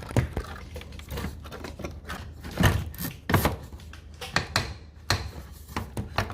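Irregular clicks and knocks of tools and metal parts being worked on a Daikin air conditioner's blower wheel assembly, with two louder knocks near the middle.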